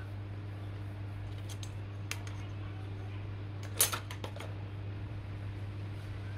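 A steady low hum with a few scattered small clicks and taps. The loudest is a quick cluster of clicks about four seconds in.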